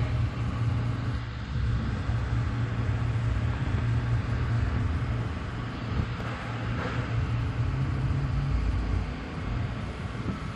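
Steady low mechanical hum, with a few faint clicks about six and seven seconds in.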